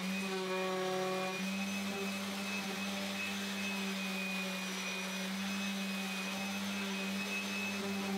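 Handheld random orbit sander running steadily with a constant-pitched motor hum while sanding the edges of a 3/4 inch plywood push stick.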